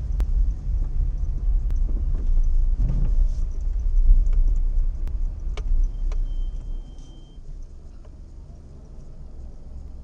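A vehicle's engine and road rumble heard from inside the cabin as it rolls slowly, with a few small rattling clicks. About six and a half seconds in, the vehicle stops and the rumble drops to a quieter idle hum.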